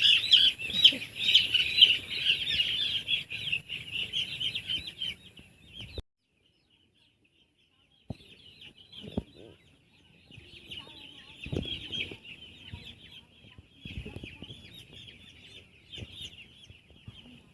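Many six-day-old broiler chicks peeping in a dense, high chorus, loud at first and fading. The sound drops out completely for about two seconds partway through, then the peeping comes back quieter with a few soft knocks.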